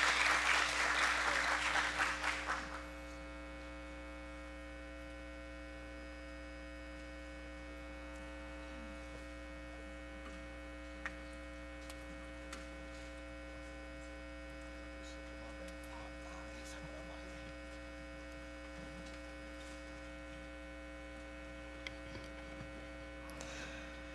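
Applause dying away over the first two or three seconds, then a steady electrical mains hum made of several fixed tones, with a couple of faint clicks.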